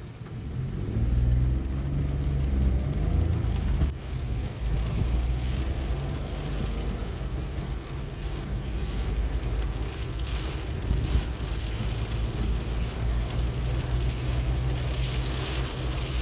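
A rainstorm: steady rain hissing while gusts of wind buffet the microphone with a deep rumble. The hiss of the rain grows louder near the end.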